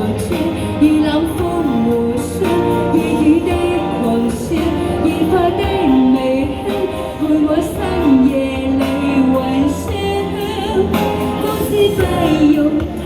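Cantopop music with a lead melody line over sustained accompaniment; no words can be picked out.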